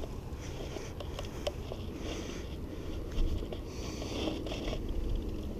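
Close handling noise from hands working in a landing net to unhook a small fish: rustling and small clicks over a low rumble on the microphone, with a short knock about three seconds in.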